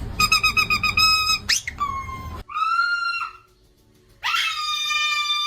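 Pet parrot calling: a rapid string of about nine short beep-like pips, a quick rising whistle, then two long, drawn-out screechy calls with a pause between them.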